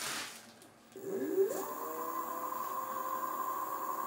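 48V 8-inch brushless hub motor of an electric scooter spun up with no load by the throttle: a brief rustle, then about a second in a rising whine that settles into a steady high-pitched hum. It runs smoothly on its new controller with the hall sensors connected.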